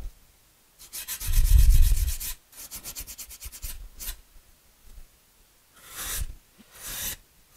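Sandpaper on a hand sanding block rubbed along the edge of a thin foam fillet, bevelling it. A long stroke about a second in, then a run of short quick strokes, then a few single strokes with pauses between.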